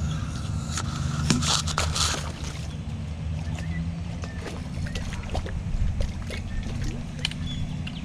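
Steady low motor hum, with rustling and scattered light clicks as a spinning reel on a blowgun rig winds in the line after the fish has come off the dart.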